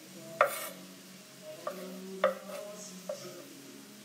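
Chef's knife knocking on a wooden cutting board as cherry tomatoes are halved: four sharp knocks with a short ring, the loudest about half a second in and another a little past two seconds.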